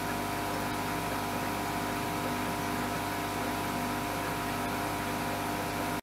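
A steady mechanical hum with hiss, holding several fixed tones without change.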